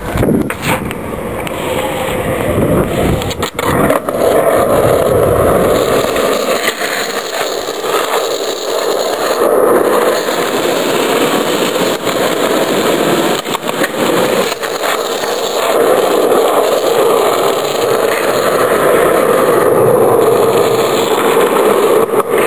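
Skateboard wheels rolling over rough asphalt with a steady rumble, broken by a few sharp clacks of the board striking the ground: near the start, twice a few seconds in, twice about two-thirds through, and at the end.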